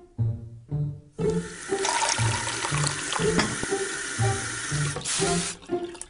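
Tap water running into a kitchen sink, starting about a second in and shutting off shortly before the end. Background music of short, bouncing notes plays under it.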